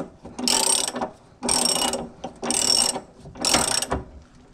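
A ratcheting wrench turning a fastener, in five short clicking bursts about a second apart.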